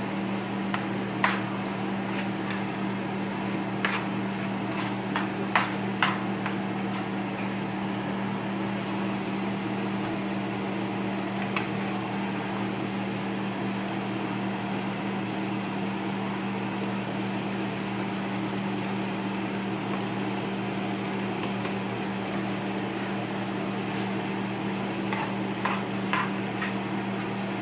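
Tongs clacking against a skillet as linguine with broccoli is tossed, a few sharp knocks in the first six seconds and again near the end, over a steady low hum.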